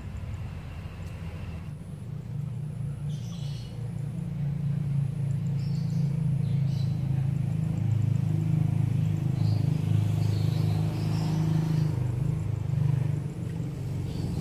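A motor vehicle engine running steadily, growing louder from about four seconds in and easing off near the end, with faint bird chirps.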